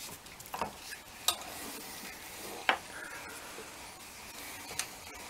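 Screwdrivers prying at an OMC Cobra lower unit's bearing carrier in the gearcase, with a few sharp metal clicks, the loudest about a second and a half apart, over a steady hiss.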